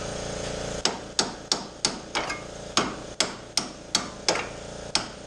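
Hammer blows on metal: about a dozen sharp, ringing strikes at roughly three a second, starting about a second in, over a steady background hum.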